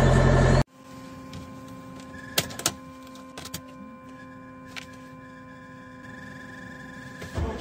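A diesel car engine running, cut off abruptly within the first second. Then, with the ignition on and the glow plugs preheating for a cold start at about −24 °C, there is a faint steady hum and whir with a few sharp clicks, until the engine starts to crank right at the end.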